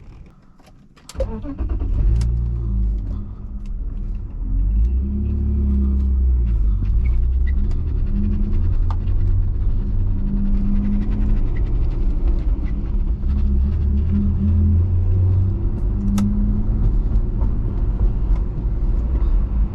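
BMW E46 320i's M54B22 2.2-litre inline-six starting about a second in, then running at low revs with the pitch rising and easing a few times as the car is driven off gently. The engine is being kept at low revs because a leaking radiator has it overheating.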